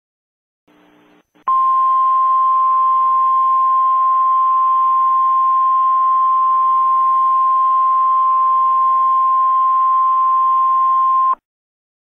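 Emergency Alert System attention signal: one steady single-pitch tone near 1 kHz, the 1050 Hz weather-radio warning tone, held for about ten seconds over a faint hiss. It starts about a second and a half in and cuts off sharply near the end.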